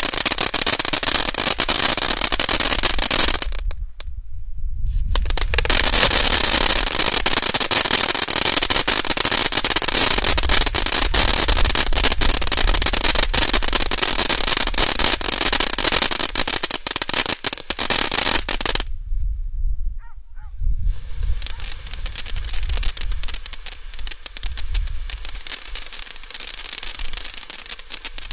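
Black Cat Energizer ground fountain firework burning: a loud steady hiss of spraying sparks, thick with crackling. The sound cuts out briefly about four seconds in and again about two-thirds of the way through, and after the second break it comes back quieter.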